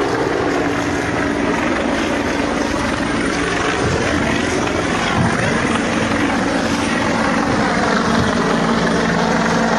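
Helicopter close by, its rotor and engine noise loud and steady, with rotor wash blowing hard across the microphone.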